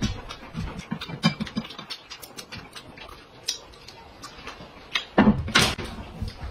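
Eating sounds at a table: chewing and chopsticks clicking against porcelain plates as dumplings are eaten. About five seconds in comes a louder, noisy burst of about a second.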